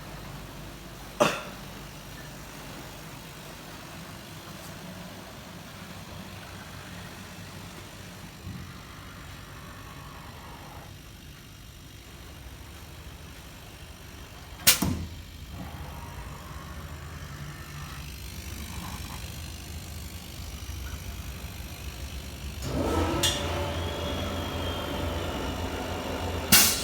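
CNC machine running with a steady low hum, with three sharp clunks about thirteen seconds apart. Near the end a motor spins up, its pitch rising and then holding as the running gets louder.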